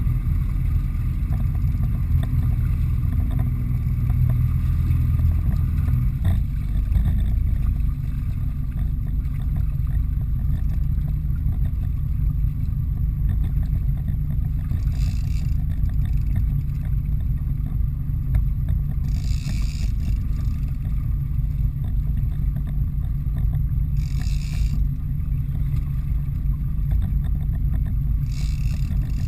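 Steady low rumble of the fishing boat's engine running, with four brief hissing sounds about four to five seconds apart in the second half.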